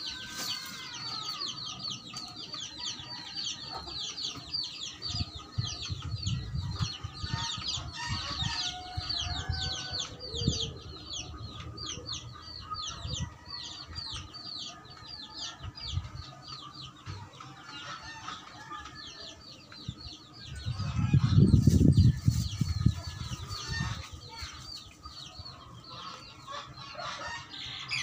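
Chickens calling: a continuous chatter of short, high peeps several times a second, with lower clucking calls. About three-quarters of the way through, a louder low rumble lasts a couple of seconds.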